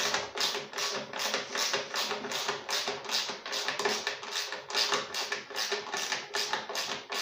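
Hand socket ratchet clicking over and over, about three or four clicks a second, as a fuel-tank mounting bolt on a lawnmower engine is run in.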